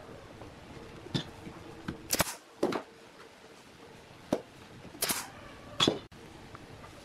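Irregular sharp knocks and clicks of hand work on wood, about seven over several seconds, with no power tool running.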